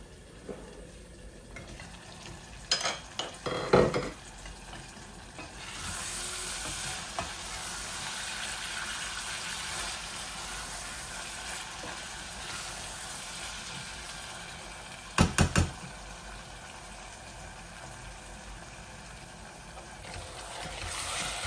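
Shutki (dried beef) bhuna frying in oil in a stainless steel pot, with a steady sizzle from about five seconds in. Metal-and-glass clinks of pot lids come off the pots around three and four seconds, three quick knocks come near the middle, and a wooden spoon stirs the pot near the end.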